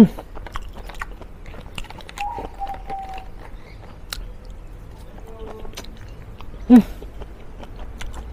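Close-up chewing of a mouthful of grilled mushroom satay in peanut sauce: soft, wet, chewy mouth sounds with many small clicks. A short, loud pitched sound cuts in at the very start and again about seven seconds in.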